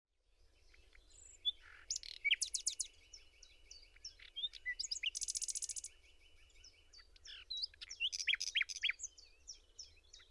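Birdsong: several small birds chirping and singing in quick, high, sliding notes, with a fast rattling trill about five seconds in.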